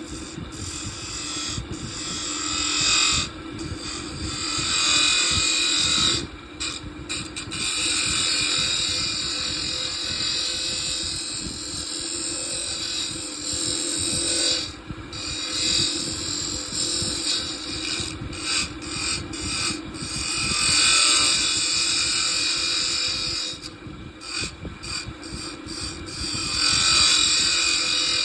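Wood lathe running with a steady hum while a tool works the spinning wood, making a hissing, scraping noise that swells and fades. The noise breaks off briefly several times as the tool comes off the wood.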